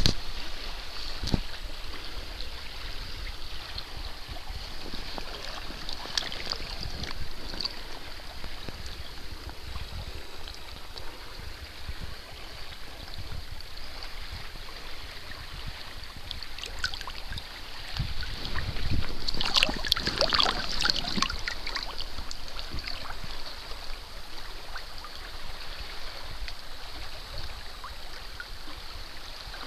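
Shallow river water rippling and lapping close to the microphone, with small splashes throughout and a louder stretch of splashing about two-thirds of the way through.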